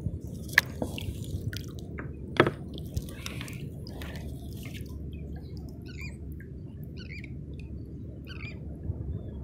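Water lapping and dripping around a kayak, with a few sharp knocks in the first three seconds. Three or four short chirping bird calls come in the second half.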